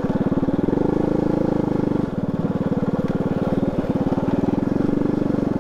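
Motorcycle engine running at low speed on a rough dirt track. The throttle opens a little about a second in, eases off around two seconds, and picks up again later.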